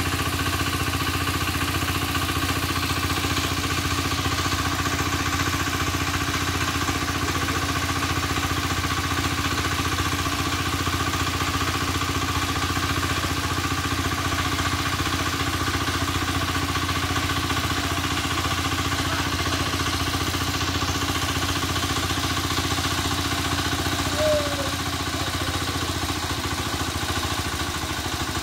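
Small engine running steadily at one constant speed, with a short chirp about twenty-four seconds in.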